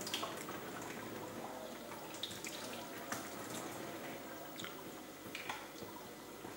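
Oil and water sizzling under the glass lid of a frying pan on a gas burner, with a sharp pop or spit about every second, as the liquid comes to the boil.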